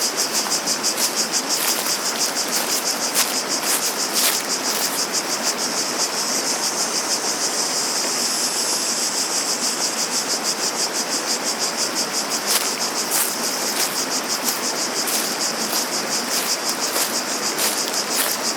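Cicadas buzzing in a loud, rapidly pulsing chorus that smooths into a steadier drone for a few seconds around the middle, over a steady rush of flowing water.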